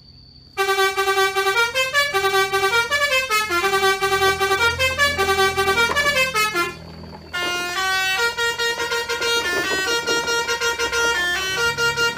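Background music: a bright, horn-like synthesized melody of short stepped notes. It breaks off for a moment just before the middle, then a second phrase begins.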